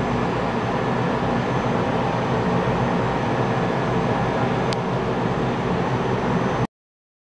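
Steady mechanical drone with a low hum, cutting off abruptly near the end.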